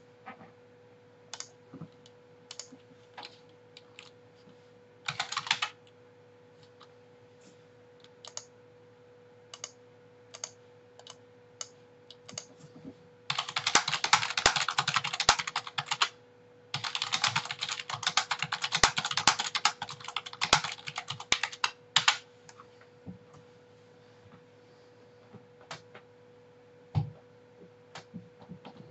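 Typing on a computer keyboard: scattered single keystrokes, a short flurry, then two long runs of fast typing about halfway through, then a few isolated key presses, over a faint steady hum.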